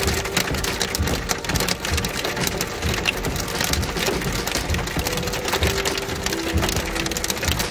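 Small hail and rain pelting a vehicle's roof and windshield, heard from inside the cabin as a dense, steady patter of sharp ticks.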